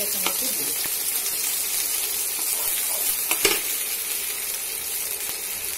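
Sliced onion, garlic and tomato sizzling steadily in hot mustard oil in a non-stick kadai, stirred with a wooden spatula. The spatula knocks against the pan a few times, loudest about three and a half seconds in.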